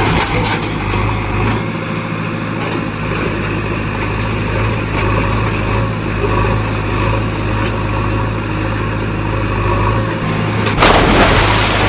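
An engine running steadily with a low hum, starting abruptly out of silence. Near the end a sudden, louder rush of noise lasts about a second.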